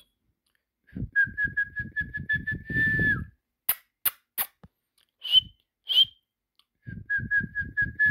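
A person whistling to call a dog: a quick run of short whistled notes at one pitch ending in a held note that drops at the end, done twice. Between the two runs come three sharp clicks and two short high chirps.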